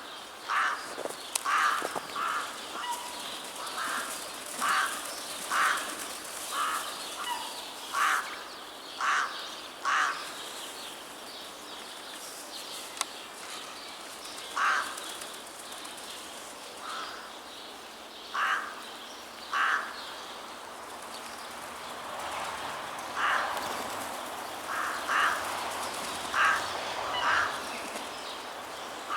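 Crows cawing: a long series of short, harsh calls, many in the first ten seconds, only a few in the middle, then a fresh run near the end.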